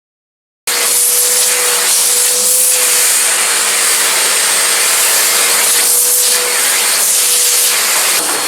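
A 1400-watt Eureka Forbes Euroclean X-Force vacuum cleaner running steadily. A dense suction hiss carries a steady whine, and the whine drops in pitch near the end. The sound cuts in after a short gap of silence at the start.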